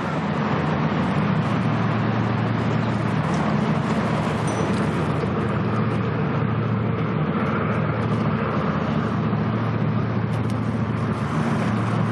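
A steady low engine drone over a constant wash of background noise, with no change in pitch or level.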